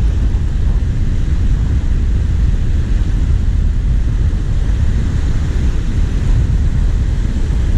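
Steady, loud rumble of wind buffeting the microphone, over small surf waves washing up the shore.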